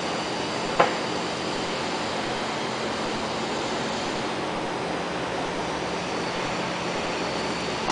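Steady rushing background noise of the workshop, with one sharp click about a second in as the metal shaft sleeve and mechanical seal are set down on the steel workbench.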